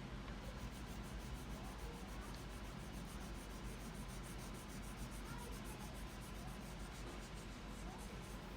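Crayon rubbing on paper in quick, even back-and-forth strokes, about seven a second, as an area is coloured in, over a steady low hum.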